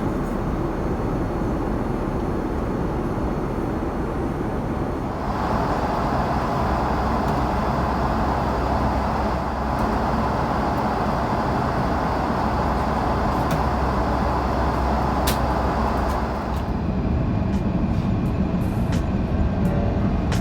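Engine and airflow noise inside the cabin of an Airbus A330-300 airliner, a steady rush. It grows louder about five seconds in and eases back near the end.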